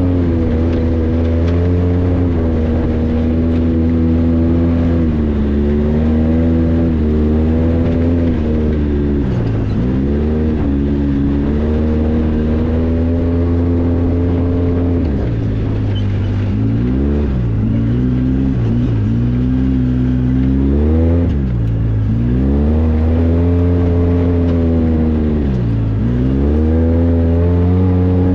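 Polaris RZR 800 side-by-side's twin-cylinder engine running while driving off-road. Its pitch holds steady for stretches, then dips and rises again several times as the throttle is eased off and reapplied.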